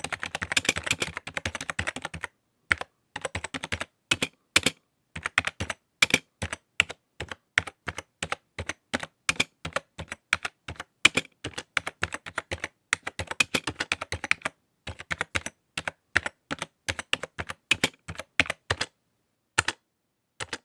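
Typing on a computer keyboard: irregular runs of key clicks, a fast flurry at the start, then bursts of keystrokes with short pauses between them.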